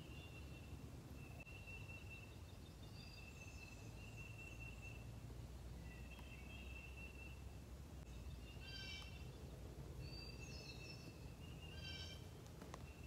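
Faint woodland birdsong: one bird repeats a short, level, high trill about every second, and brief harsher calls from another bird come in about two-thirds of the way through and again near the end, over a steady low rumble.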